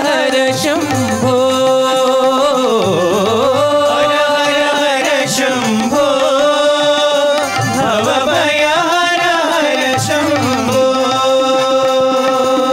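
Devotional bhajan singing: voices draw out long, wavering, gliding notes over steady instrumental accompaniment and drum strikes.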